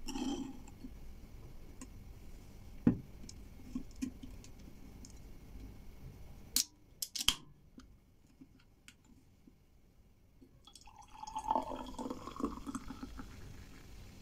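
A glass knocking once on the counter about three seconds in, then a drink can's ring-pull cracking open a little past halfway, with a few small clicks after it. From about eleven seconds a sparkling fruit spritzer pours from the can into a stemmed wine glass, splashing and fizzing.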